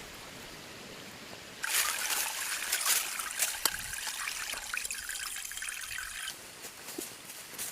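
Water trickling for about four and a half seconds, starting about two seconds in and stopping abruptly near the end.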